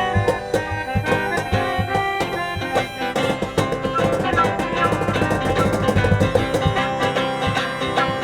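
Live acoustic street band playing an instrumental passage, with sustained instrument tones over a steady percussive beat.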